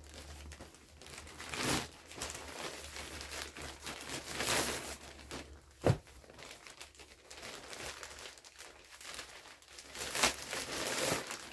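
Plastic diaper packs and plastic-backed adult diapers crinkling as they are handled and stacked, in several rustling bursts, with one sharp knock about six seconds in.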